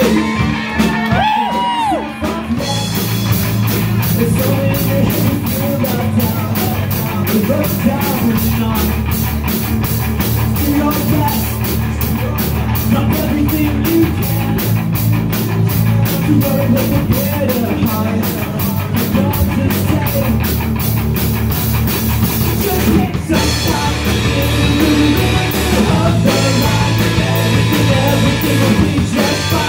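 A live punk rock band playing: distorted electric guitar, bass guitar and a drum kit with a singer. After a thinner opening with a sliding high note, the full band with steady, fast cymbal strokes comes in about two seconds in and keeps going, with one brief break near the end.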